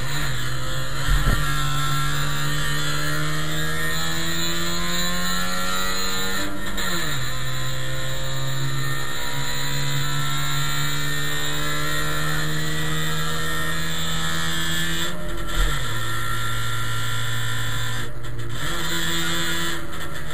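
A Trabant race car's two-stroke twin-cylinder engine under hard load, heard from inside the cabin. The engine note climbs steadily, drops sharply twice and rises again near the end. There are two brief low thumps, one about a second in and one around the second drop.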